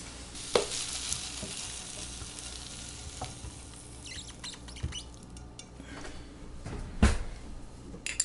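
Hot chicken and vegetable stir-fry sizzling in a frying pan and being tipped and scraped out onto a plate of noodles, with scattered clinks and scrapes. One loud knock about seven seconds in.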